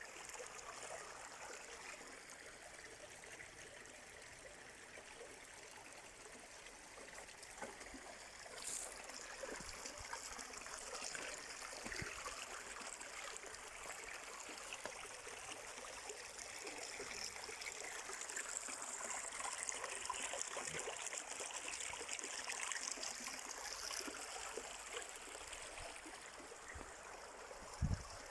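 Stream water flowing and trickling steadily, a little fuller in the second half. A brief low thump near the end.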